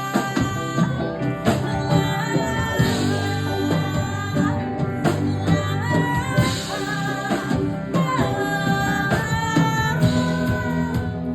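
A live rock band playing a song: a singer over electric guitar, bass and drum kit.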